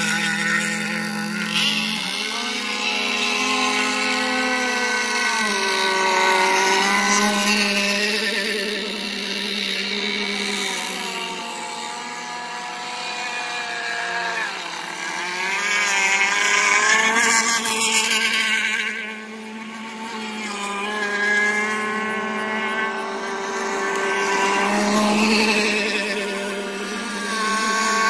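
Engines of radio-controlled racing boats running at speed, several at once. Their pitch keeps rising and falling as the boats pass and turn, with a short drop in loudness about two-thirds of the way through.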